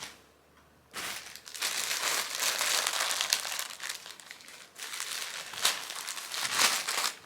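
Packaging crinkling and rustling as clothing is handled and pulled out, starting about a second in and going on in uneven bursts.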